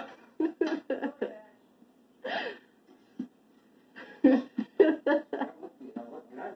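Indistinct, mumbled voices in short bursts, loudest about two-thirds of the way through, over a faint steady hum.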